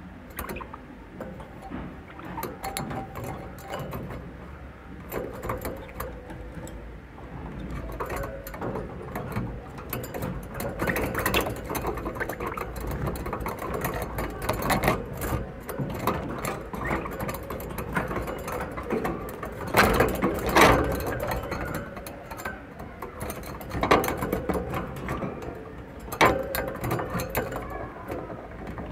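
Budgerigars in a wire cage: dense, rattly clicking chatter and wing flutters, with a few louder sharp knocks in the last third.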